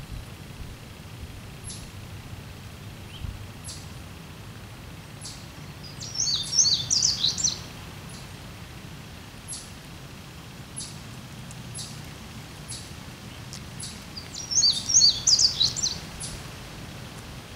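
A songbird singing two short, rapid phrases of high notes about eight seconds apart, with single high chirps in between.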